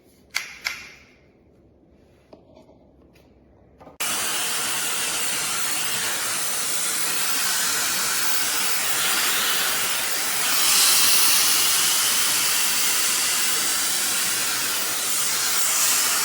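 A couple of small clicks, then about four seconds in a hair dryer brush (air styler) switches on and blows air with a steady rushing hiss, which gets a little louder about ten seconds in.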